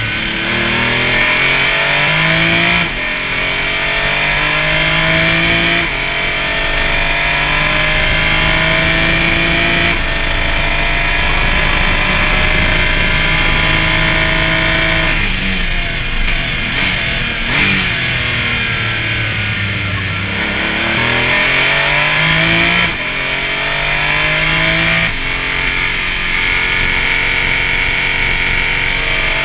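Porsche Cayman race car engine under hard acceleration, pitch climbing and then dropping at quick upshifts about three and six seconds in, followed by a long pull. Around the middle it slows with braking and a series of downshifts, then accelerates through two more upshifts near the end.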